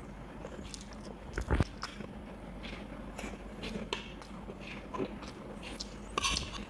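A person eating: scattered small chewing and biting noises and light clicks of utensils on a plate. There is a louder knock about a second and a half in and a short run of clicks near the end.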